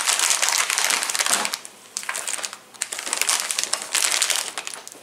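Thin clear plastic packaging bag crinkling as it is handled. The crinkling is steady for the first second and a half, stops briefly, then comes in several short bursts.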